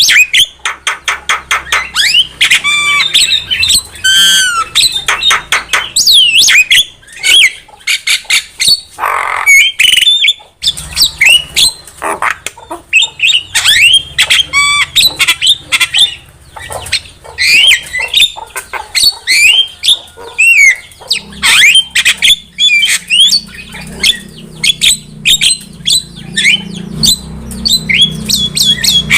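Javan myna (jalak kebo) singing vigorously: a fast, unbroken stream of harsh squawks, rapid clicking chatter and short gliding whistles.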